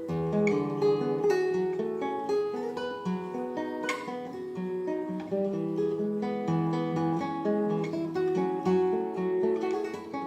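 Esteve model 8 nylon-string classical guitar played: a continuous line of plucked melody notes over lower bass notes.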